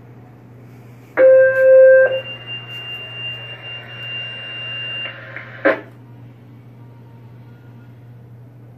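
Two-tone sequential fire dispatch page over a radio speaker: a loud, buzzy low tone for about a second, then a higher steady tone held for about three seconds. A single click follows, typical of the radio carrier dropping.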